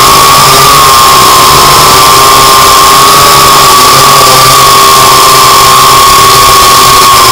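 SYMA X8G quadcopter's motors and propellers whining steadily in flight, heard loud through its onboard camera, with a constant hiss; the pitch wavers slightly.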